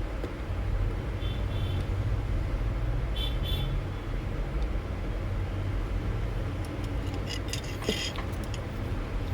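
Steady low rumble of road traffic, with two brief high-pitched toots about a second in and about three seconds in, and a run of small clicks near the end.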